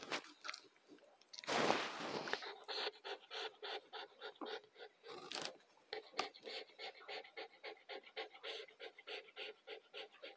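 A nursing schnauzer mother and her week-old puppies: a fast, even rhythm of about five short breathy sounds a second. A brief loud rustle comes about one and a half seconds in.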